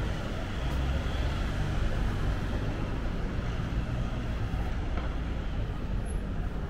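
Steady city street traffic noise, a continuous rumble of cars on the road.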